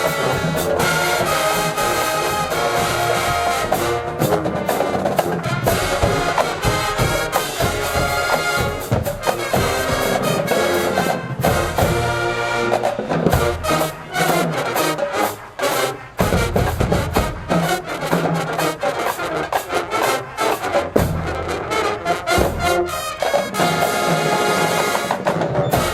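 HBCU marching band playing loud brass music, trumpets and trombones over drums, with a short break in the playing about two-thirds of the way through.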